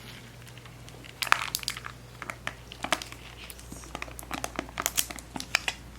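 Plastic snack packaging crinkling and crackling in irregular bursts as a baby squirrel monkey picks and pulls at a pack of cereal puffs, trying to open it.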